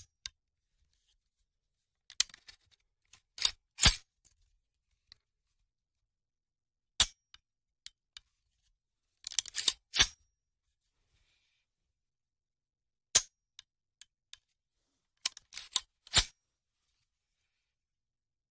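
A rifle's charging handle is racked and the trigger dry-fired. Sharp metallic clicks and clacks come in short groups every few seconds, with silence between them.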